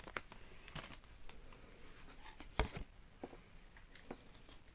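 Faint handling of Pokémon trading cards on a table: soft taps and light rustling as cards are pulled from the opened pack and set down, with one sharper tap about two and a half seconds in.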